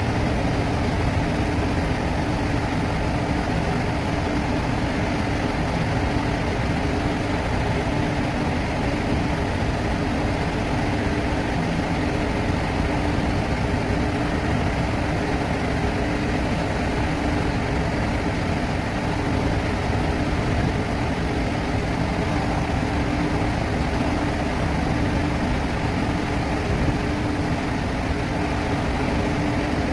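Steady drone of a tanker's engine and machinery heard on board while the ship is under way, with a few constant hum tones over a low rumble.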